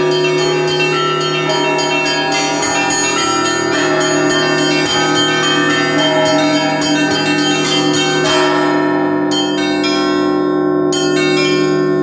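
Orthodox church bells rung by hand, heard close up inside the belfry. A ringer strikes several small bells through cords tied to their clappers and a larger bell through a foot pedal, giving quick overlapping strikes over a continuous ringing. This is the ringing at the start of the Sunday liturgy.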